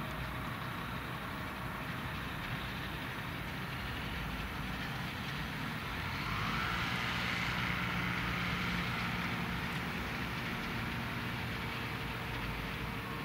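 Czech Sport Aircraft PS-28 Cruiser light aircraft taxiing at low power, its Rotax 912 four-cylinder engine and propeller running steadily. It grows louder about halfway through as the plane passes broadside, then eases off as it moves away.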